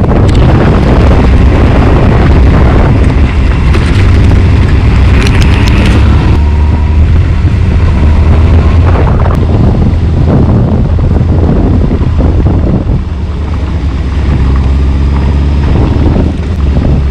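Honda CBF600 inline-four engine running as the motorcycle rides, under heavy wind noise on the microphone. The sound dips briefly about thirteen seconds in.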